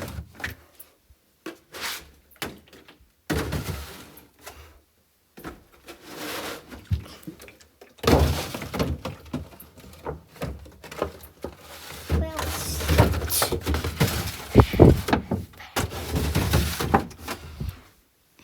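Clattering and knocking of drink containers being handled and set on refrigerator shelves, in irregular bursts with short pauses, busiest in the second half.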